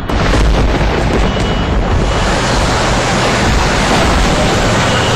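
Roar of a rushing flood torrent: loud, steady noise that cuts in suddenly.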